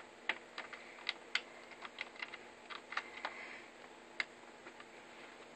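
Irregular small plastic clicks and taps from a Dell Studio 1737 laptop keyboard being pressed and handled, about a dozen in quick, uneven succession, thinning out after about four seconds.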